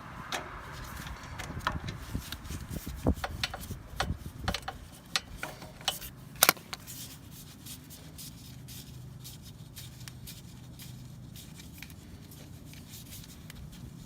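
Metal tool clinking and scraping against the generator's oil drain nut as it is worked loose: irregular sharp clicks and knocks, the loudest a double click about six and a half seconds in, then quieter from about seven seconds on.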